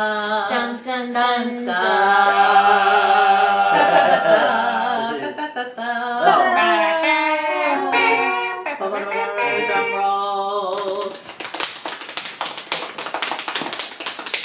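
Voices singing a wordless tune in long held notes that slide between pitches, stopping about eleven seconds in. Then rapid crinkling and tapping of a paper mailer envelope and its cardboard insert being handled and pulled open.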